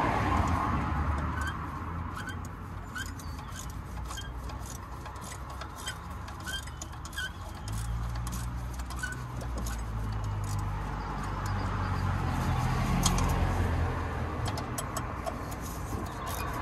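A motor vehicle's engine rumbling nearby, heavier from about halfway through, with scattered light clicks and taps.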